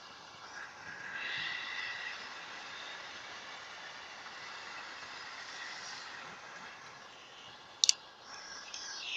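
Butane torch lighter burning with a steady hiss, its flame locked on. A sharp double click comes about eight seconds in.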